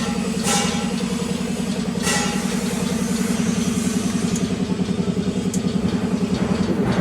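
A 3 HP single-phase turmeric powder grinder running steadily with a low hum that pulses quickly and evenly. Brief hissing rushes come about half a second and two seconds in.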